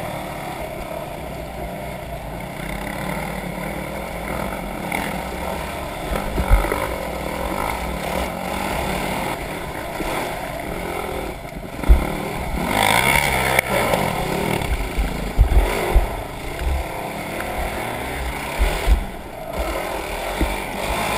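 Off-road vehicle engine running over rough trail, with a brief rise and fall in revs past the middle and several low thumps.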